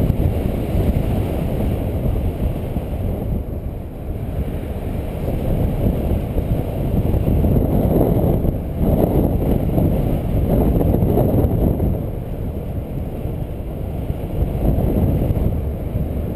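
Airflow buffeting the microphone of a harness-mounted camera as a paraglider climbs on a tow line: a loud, gusting low rumble that swells around the middle and eases off a little later on.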